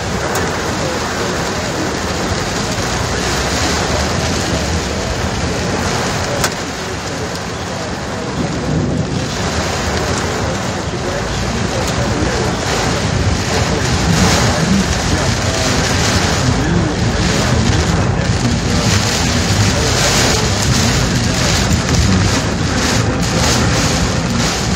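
Heavy storm rain hitting the roof and windshield of a moving car, heard from inside the cabin as a loud, steady rush that grows heavier about halfway through.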